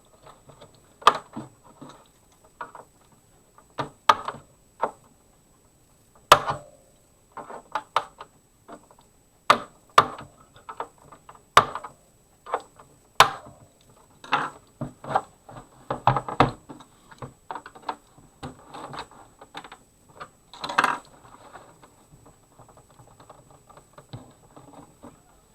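Irregular sharp plastic clicks, snaps and knocks from handling and prying at an Xbox One S console's plastic casing, several of them much louder than the rest, with a busier run of small clicks and rubbing in the middle.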